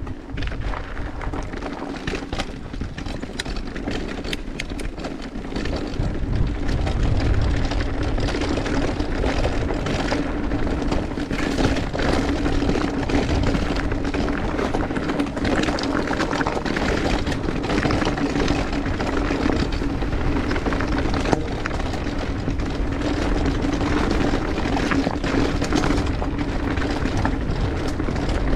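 Mountain bike descending a rough, rocky trail: tyres rolling over stones and gravel with constant rattling and clattering of the bike, over a steady hum. It grows louder about six seconds in.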